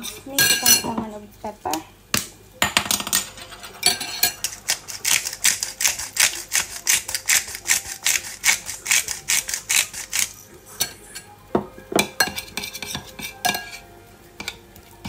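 A spoon stirring a honey, oil and seasoning marinade in a bowl, clinking against the side in quick, regular strokes, about five or six a second, for several seconds in the middle. Scattered utensil knocks come before and after the stirring.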